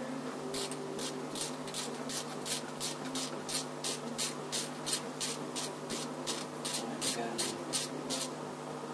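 A hand tool worked back and forth on the engine in quick rasping strokes, about four a second, steady and even throughout, stopping shortly before the end.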